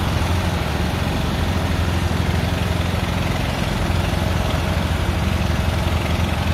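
Diesel engine of a truck-mounted crane running steadily with a low, even hum.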